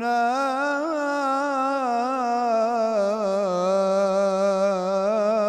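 A man chanting an Arabic religious song (ibtihal) unaccompanied, drawing out one long ornamented note that wavers up and down and settles a little lower in pitch partway through.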